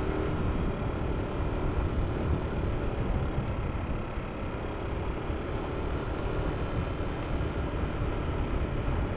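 Steady wind rush and road noise from riding a road bike at race speed, with wind buffeting the body-worn microphone.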